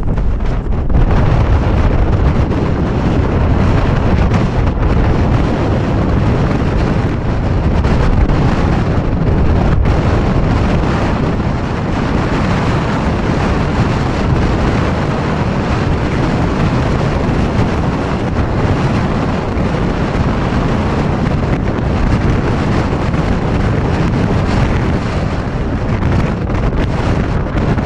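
Strong wind buffeting the camera microphone: a loud, steady rumble of wind noise, heaviest in the low end.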